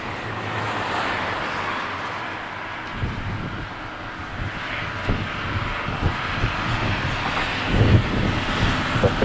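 Boeing 767-300ER's jet engines running across the airfield, a steady rushing whine. Gusts of wind buffet the microphone with low rumbles that grow stronger near the end.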